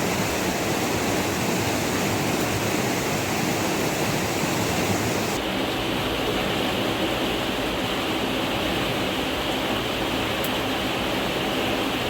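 Steady rushing water, a dense even hiss with no break. About five seconds in, the highest part of the hiss drops away suddenly and the sound turns duller.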